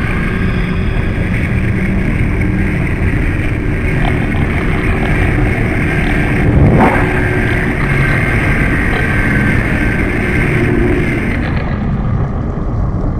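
Steady rumble of ship noise recorded underwater by a hydrophone, with a constant hum of machinery tones and a single brief knock about seven seconds in.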